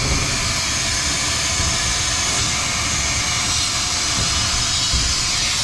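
Steady, even rushing hiss of an air blower or fan, with a faint steady hum under it.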